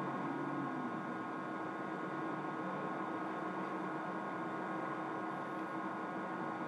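Steady electrical hum with a background hiss, unchanging throughout; no distinct clicks or handling sounds stand out.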